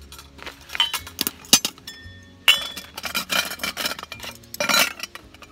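Camp cooking gear being handled: several sharp clinks, one with a brief ring, then a stretch of rattling and rustling in the second half.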